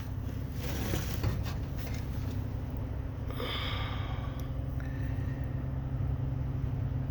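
Steady low machine hum, with a couple of short breaths or rustles close to the microphone, about one and three and a half seconds in.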